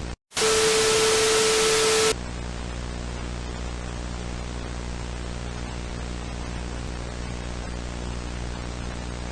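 A steady low hum with hiss that cuts out for a moment near the start, then a loud burst of static with a steady tone through it for about two seconds, after which the low hum and hiss carry on.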